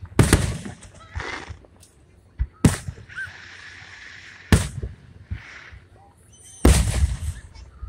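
Aerial firework shells bursting: four loud bangs about two seconds apart, each trailing off in an echoing rumble.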